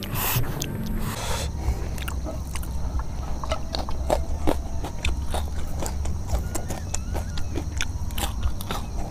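Close-up chewing and crunching of raw vegetables: many small crisp clicks of teeth on crunchy leaves and stems, with a couple of louder crunches near the start.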